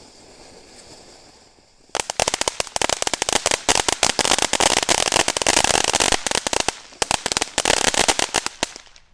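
Ground fountain firework spraying sparks. It hisses softly at first, then about two seconds in breaks into loud, dense, rapid crackling that thins out and fades near the end.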